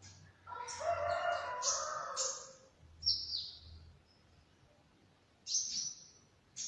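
A rooster crowing once, a call of about two seconds starting about half a second in, among short, sharp high-pitched chirps of small birds that come in several quick bursts.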